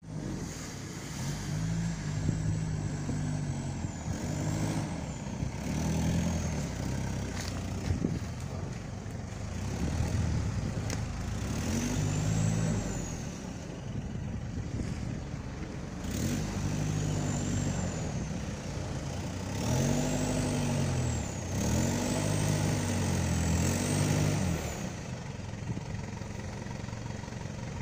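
Off-road 4x4 engine revving hard in repeated surges, its pitch rising and falling again and again as it works under load on a steep climb, with a high whine that rises and falls with the revs.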